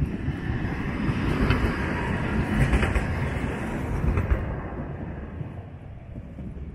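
A vehicle passing close by: rolling traffic noise swells over the first couple of seconds, peaks near the middle with a few sharp clicks, then fades away.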